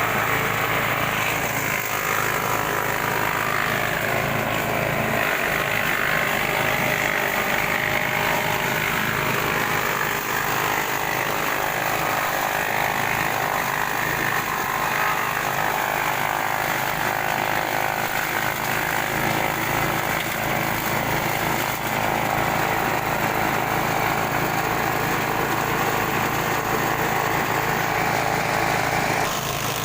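Repaired engine-driven grass chopper running steadily, its small engine and cutter blades making a loud, rough mechanical din, chopping grass for cattle feed. The tone of the noise shifts about ten seconds in.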